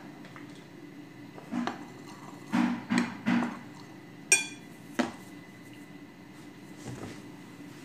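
Metal spoon knocking against a glass mixing bowl while stirring flour: a run of dull knocks, then a sharp ringing clink and one more knock about a second later.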